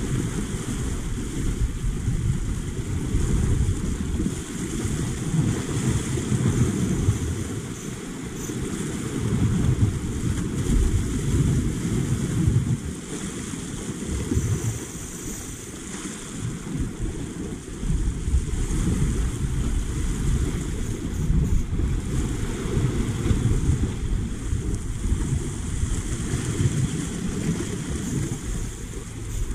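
Wind buffeting the microphone in a loud, uneven rumble, with the hiss and wash of small waves breaking over shore rocks.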